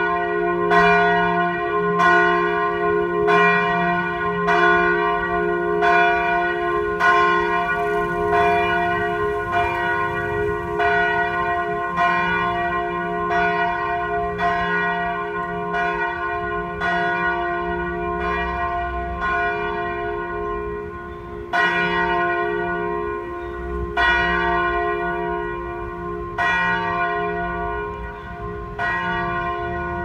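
Church bells ringing from a bell tower, struck in a steady rhythm of about one stroke a second, each stroke ringing on into the next.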